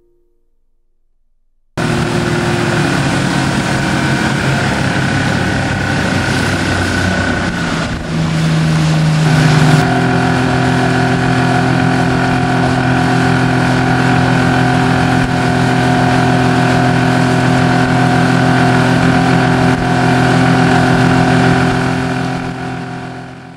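Boat motor running steadily with a rush of wind and water. It starts abruptly a couple of seconds in, shifts pitch about eight to ten seconds in, and fades out near the end.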